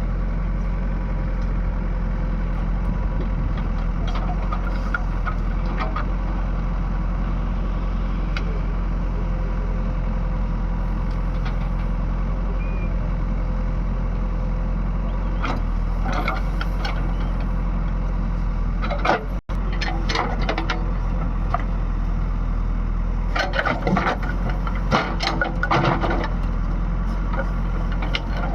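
Heavy diesel machine engine running steadily, with scattered clattering knocks in the second half.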